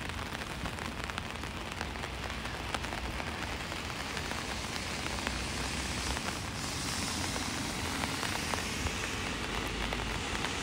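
Steady light rain falling on wet ground and paving, an even hiss with small drop ticks, growing a little louder and brighter past the middle.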